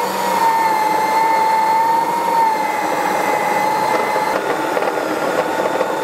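Electric food processor motor running with a steady whine, churning a thick dough of ground walnuts, sugar, eggs and rum in its bowl.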